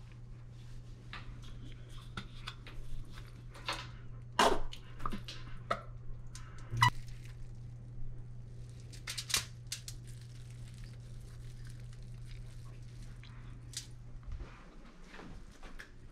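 Aluminium foil crinkling and the crisp toasted sourdough crust of a grilled cheese crackling as the sandwich is handled and pulled apart, in scattered sharp crackles. A steady low hum runs underneath and stops near the end.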